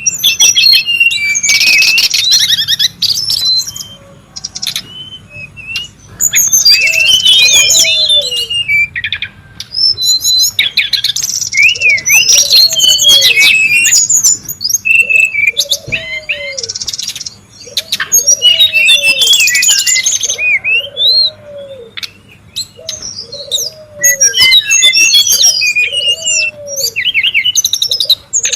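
Brown-chested jungle flycatcher song: loud bouts of rapid, jumbled high whistles and chattering notes, each lasting a few seconds with short pauses between. In the second half a low, arching note repeats about once a second underneath.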